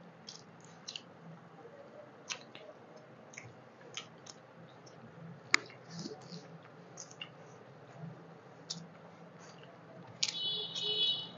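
Close-miked eating sounds: scattered wet mouth clicks, lip smacks and chewing as rice and curry are eaten by hand, with one sharp click about halfway through. A brief high-pitched squeaky sound about ten seconds in is the loudest part.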